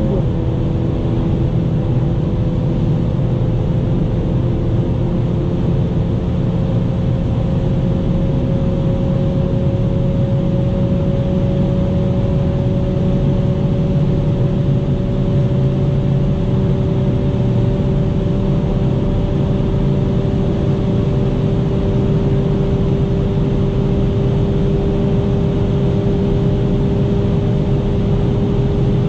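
Mercedes-AMG CLA 45's turbocharged 2.0-litre four-cylinder heard from inside the cabin, pulling hard in a high gear above 200 km/h. Its steady drone rises slowly in pitch without a gear change, over a constant rush of wind and tyre noise.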